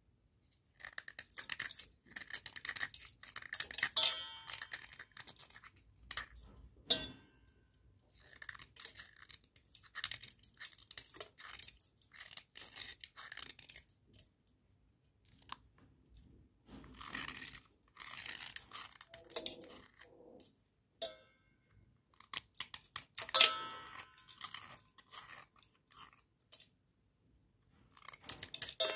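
A snap-off utility-knife blade scraping and shaving a wet slate pencil, in short, irregular crunchy bursts with brief pauses between strokes.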